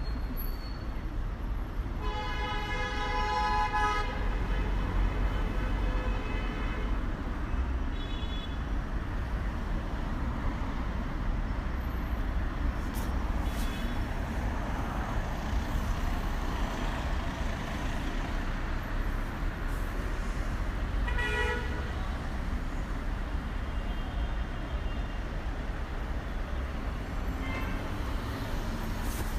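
Road traffic passing, with a steady low rumble of engines and tyres. A vehicle horn honks: a long blast about two seconds in, a brief toot near eight seconds, and another short honk about twenty-one seconds in.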